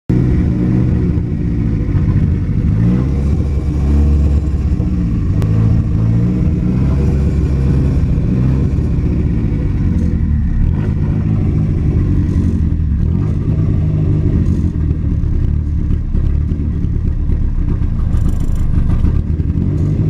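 Nissan 240SX (S13) engine running just after being started, heard from inside the cabin. Its speed wanders up and down, between roughly 1,200 and 2,000 rpm on the tachometer, instead of settling to a steady idle.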